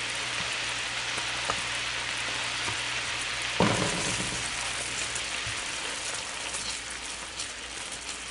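White wine and lemon butter sauce sizzling steadily in a pan as it reduces over the heat, with a single sharp knock about three and a half seconds in.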